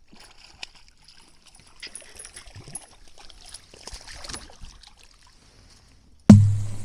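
A small bass splashing at the surface as it is reeled up beside a kayak. Near the end comes a sudden loud thump with a low ring after it, as the fish is swung aboard and lands on the kayak.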